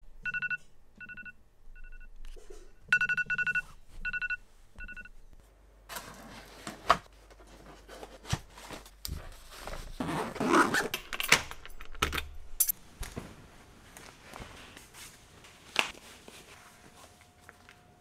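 Electronic beeping, short beeps of one high tone in an uneven pattern, for about the first five seconds. Then rustling, scraping and clicking of hands handling a fabric bag and its zipper.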